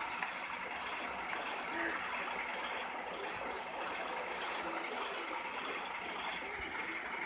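Freight train cars rolling past with a steady rushing noise of wheels on rail. A sharp click comes just after the start and a softer one about a second later.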